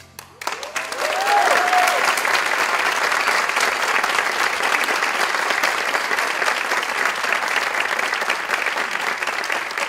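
Concert audience applauding, the clapping breaking out within the first half second as the orchestra's final chord dies away and then holding steady. A brief rising-and-falling cheer rings out over the clapping about a second in.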